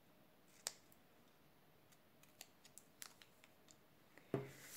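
Quiet, sparse clicks of small scissors snipping thin cardstock: one sharper snip under a second in, then several faint ticks. Near the end comes a louder knock and a short rustle of card.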